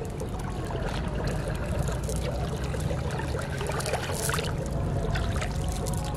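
A metal chain clinking and rattling as it is gathered up by hand, in short bursts of clicks, over a steady rush of flowing river water.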